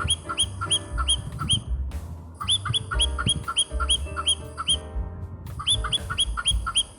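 Bird chirping: short, high, hooked chirps at about three a second, in three runs separated by brief pauses. Background music with a steady low beat plays underneath.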